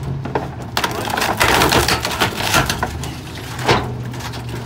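Garbage truck compactor crushing bulky household furniture over the steady hum of the truck's engine and hydraulics. A dense run of cracking and snapping comes from about a second in to three seconds in, then one loud sharp crack near the end.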